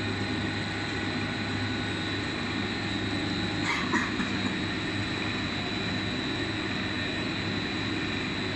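KJG sewage-sludge dryer running with a steady machine drone and a constant high whine over a low hum. A short rattle sounds about four seconds in.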